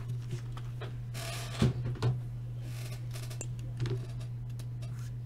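A cardboard shipping case being handled and set down on a desk: a scraping rustle, then two thumps, with a smaller knock a couple of seconds later, over a steady low hum.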